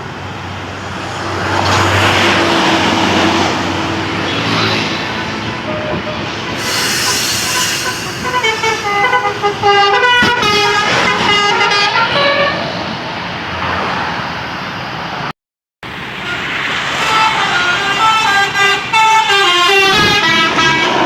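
Bus telolet horn, a Basuri multi-tone electric horn, playing a quick melody of stepped notes twice over bus and traffic noise.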